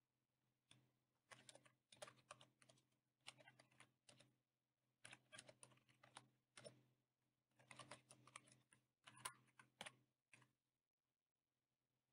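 Faint typing on a computer keyboard: short bursts of key clicks with brief pauses between them, stopping near the end.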